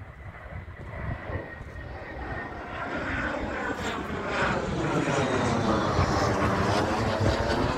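A jet aircraft flies low overhead, its engine noise growing steadily louder into a rushing roar, with a sweeping, phasing tone as it passes.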